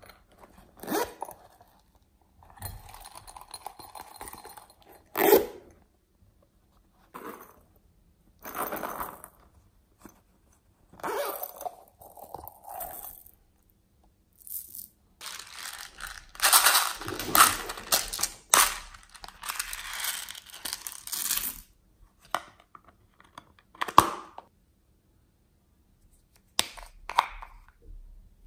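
Handling noises from small plastic containers and slime toppings being squeezed, opened and poured: a series of separate rustling and crinkling bursts with a few sharp clicks, the longest running for several seconds in the middle.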